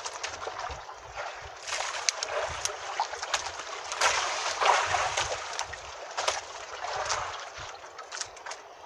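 Water sloshing and splashing against the hull of a small outrigger fishing boat, swelling and fading, with scattered small clicks and knocks.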